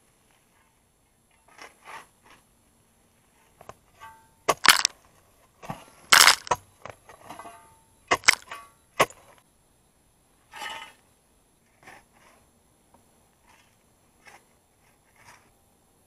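Steel shovel digging into stony forest soil: the blade crunching and scraping into the ground and spadefuls of earth and stones thrown out. A cluster of loud strokes in the middle, then fewer, quieter ones.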